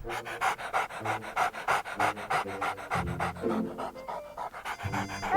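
Cartoon puppy panting quickly and evenly, over light background music.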